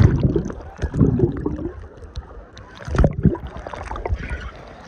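Wave-pool water sloshing and lapping around someone wading, with a few dull low thumps about one and three seconds in.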